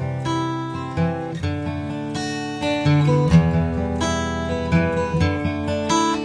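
Background music led by acoustic guitar, plucked notes and strummed chords.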